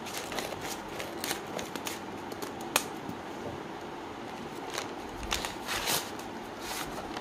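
Scissors snipping through a brown paper mailer envelope, with a string of short crisp clicks, then the paper crinkling and rustling as it is pulled open and a cardboard box is slid out near the end.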